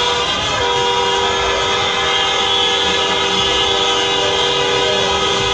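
Many car horns sounding at once in a road tunnel, held long and overlapping in celebratory honking. Two low steady horn notes run under the rest, the second joining about half a second in.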